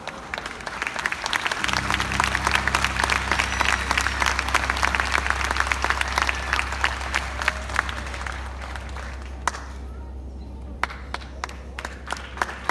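Audience applauding, with a low steady drone underneath from about two seconds in. The applause dies away about ten seconds in, and scattered claps start again near the end.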